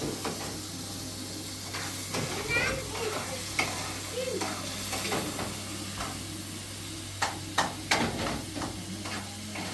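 Food sizzling as it fries in a pan, with a utensil stirring and knocking against the pan several times in the second half.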